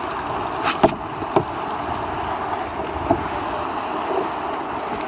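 Steady rush of river rapids heard from a canoe, with a few short sharp knocks about a second in and again near three seconds.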